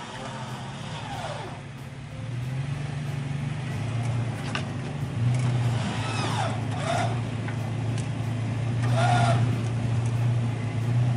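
Toyota FJ Cruiser's 4.0-litre V6 running at low, steady revs while crawling over boulders, getting louder as it climbs closer, with a few short high squeals over it.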